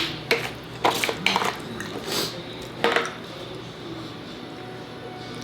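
Cutlery and plates clinking and knocking at a table, several sharp clinks in the first three seconds.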